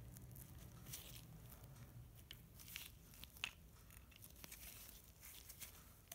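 Near silence with faint handling noises: scattered small clicks and rustles, one slightly sharper click about three and a half seconds in.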